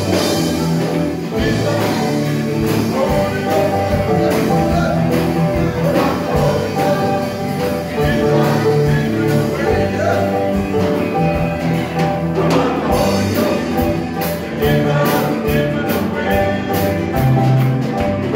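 Gospel praise and worship music: a congregation singing along with instruments, and hands clapping in time, most clearly in the second half.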